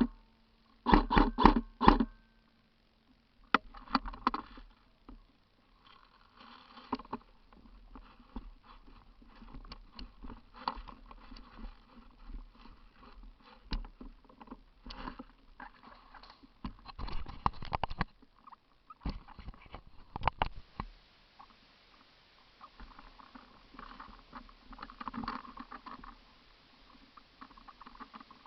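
Four quick sharp pops about a second in, then a long stretch of irregular rustling with scattered short clicks.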